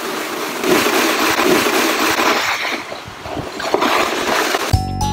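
Plastic sled sliding over snow, a steady scraping hiss. Near the end a chiming jingle with a beat cuts in.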